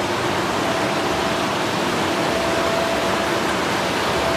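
Steady rushing noise of running water, with a faint thin hum that comes and goes every second or so.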